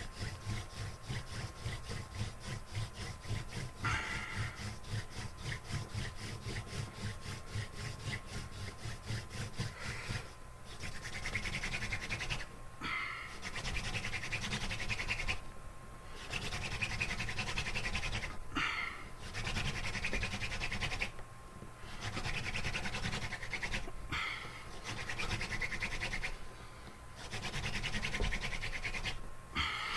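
Hand-drill friction fire: a wooden spindle spun rapidly back and forth between the palms in a wooden hearth board, a fast rhythmic wood-on-wood rubbing with short breaks every few seconds. The friction is building heat toward an ember.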